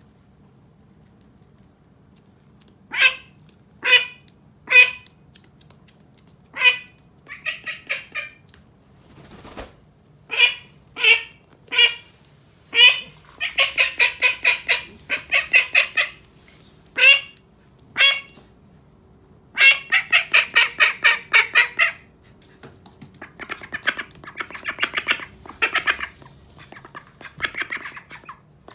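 Pet domestic duck quacking: first a few single loud quacks about a second apart, then fast runs of quacks, with quieter, softer quacking near the end.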